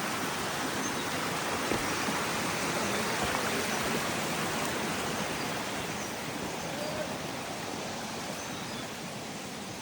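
Steady rush of flowing water from a small spring-fed forest stream, an even hiss that fades a little near the end.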